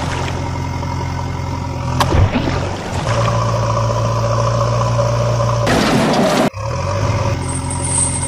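Tractor engine idling steadily, stepping up and running harder from about three seconds in. A short rushing hiss comes near the six-second mark and cuts off abruptly, after which the idle goes on.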